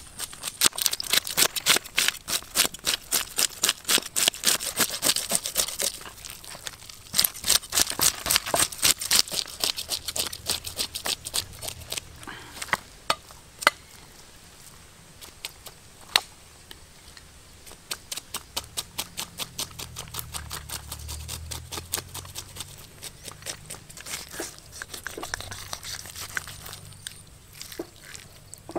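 Rapid runs of sharp taps, several a second, with short pauses between runs, thinning out to scattered taps with two louder single ones partway through.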